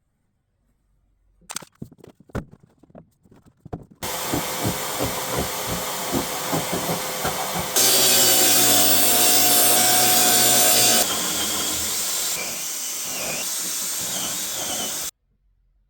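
Woodworking shop sounds in short edited clips. Scattered knocks of handling, then rhythmic strokes on wood at about three a second. Then a power tool runs loudly and steadily for about three seconds, followed by a softer steady machine noise that cuts off sharply near the end.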